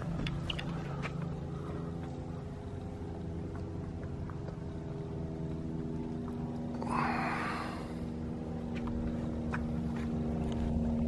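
Steady motor hum with several pitched tones, its strongest tone rising slightly near the end, and a brief hissing rush about seven seconds in.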